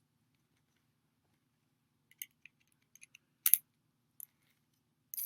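Light clicks and taps of hard skateboard parts, a wheel and its bearings being handled and fitted onto the truck. There is a louder double click a little past the middle, and near the end a click followed by a short hiss that fades.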